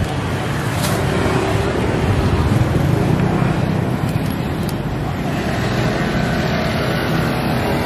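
Street traffic noise: a steady rumble of motor vehicles passing on the road.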